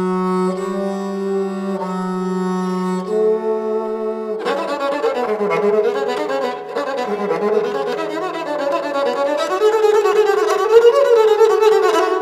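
Sarangi bowed as a double stop with its first sympathetic string, holding two steady notes together that step up about three seconds in. About four and a half seconds in, it changes to detached bowing: a quick run of short, separately bowed notes sliding up and down, with the sympathetic strings ringing on.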